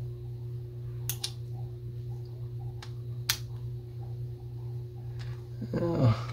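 A few small, sharp clicks of a spincast fishing reel's metal parts being handled and fitted together, over a steady low hum. Near the end comes a short sound that falls in pitch.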